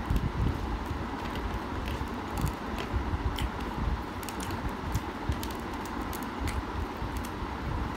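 Fingers gathering and pressing rice on a ceramic plate, with chewing, making irregular soft clicks and scrapes over a steady background hum.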